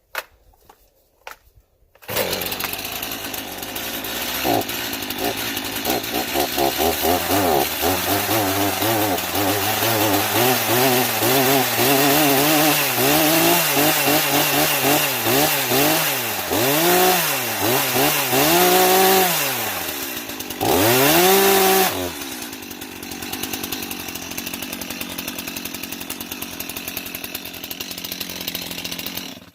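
Two-stroke Stihl chainsaw starting after a few clicks, about two seconds in, then running. It is revved again and again, the pitch rising and falling with each blip of the throttle, held high once near the end, then dropping back to idle before stopping abruptly.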